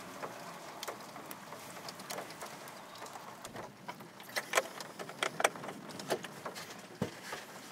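Scattered raindrops pattering: irregular sharp ticks over a faint steady hiss, thickest around the middle.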